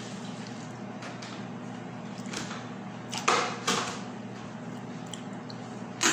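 Mouth sounds of someone eating with her fingers: a few short sucks and slurps between about two and four seconds in, over a steady low hum. A sharp click comes right at the end.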